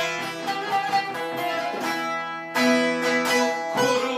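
Instrumental passage led by a plucked string instrument, without singing; strongly struck notes about two and a half seconds in and again near the end ring on.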